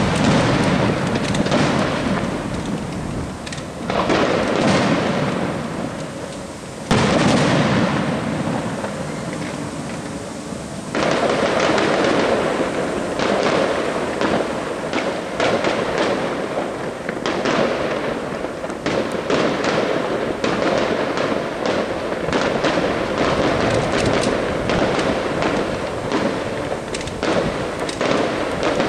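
Fireworks display: aerial shells bursting with sudden loud booms at the start and again about 4, 7 and 11 seconds in, each dying away. Dense crackling and popping carries on steadily after that.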